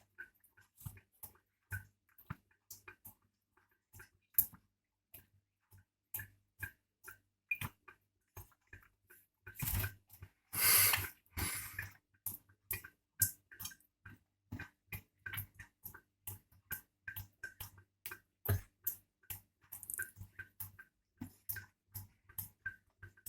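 Water dripping from a tap: irregular small wet ticks, about two or three a second, with a short rush of splashing water about ten seconds in.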